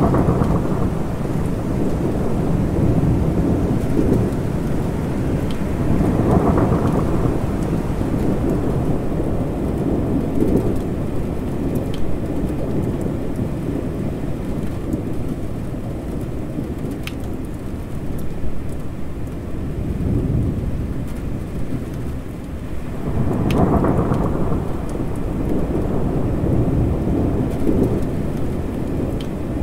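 Steady rain with low rumbling thunder rolling throughout, swelling loudest about a quarter of the way in and again near the end. A few sharp drip ticks stand out over the rain.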